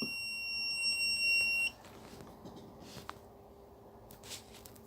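Quicko T12-942 soldering station's buzzer giving one long, high power-on beep that stops about a second and a half in, followed by a few faint clicks.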